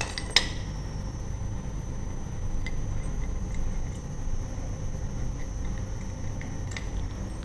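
A sharp metallic click about half a second in, then a few faint clicks, from a lever door handle and its sprung backplate being handled, over a steady low background rumble.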